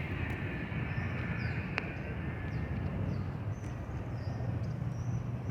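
Steady low rumble of downtown city traffic, with small birds chirping in short falling notes over it, and one sharp click just under two seconds in.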